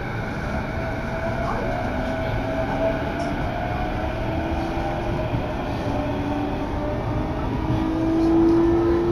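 Electric commuter train running, heard from inside the passenger car: a steady rumble from the wheels and track, with a motor whine that slowly rises in pitch as the train picks up speed and grows a little louder near the end.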